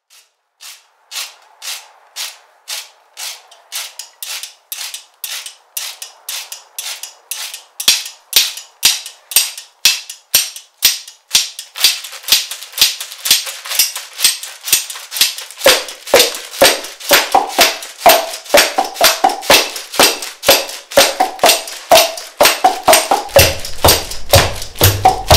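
Percussion groove built from slaps and clicks on everyday objects such as a sandal, with a djembe: sharp strikes at about two a second, turning louder and denser about eight seconds in. A tune joins about halfway through, and a deep bass near the end.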